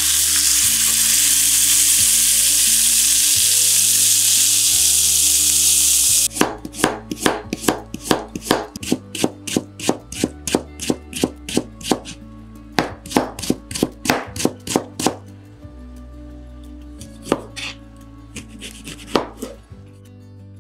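Duck breast sizzling loudly as it goes into a hot frying pan, cutting off suddenly about six seconds in. Then a kitchen knife slices carrots into thin strips on a cutting board in quick, even strokes, about three to four a second, followed by a few single knife cuts on the board near the end.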